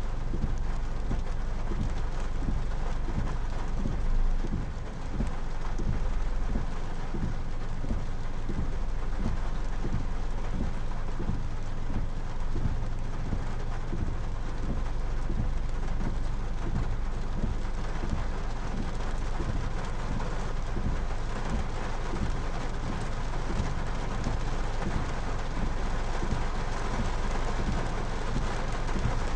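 Rainstorm: rain pouring down steadily with a low rumble underneath, swelling briefly about four seconds in.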